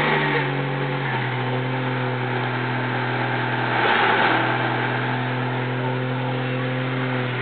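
Dodge Power Ram's Cummins 5.9-litre inline-six turbo-diesel held at high, steady revs during a burnout, its pitch dipping slightly about a second in. A rushing noise runs over it and swells about four seconds in.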